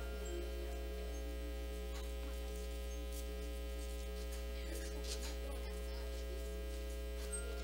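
Steady low electrical mains hum, with a few faint ticks over it.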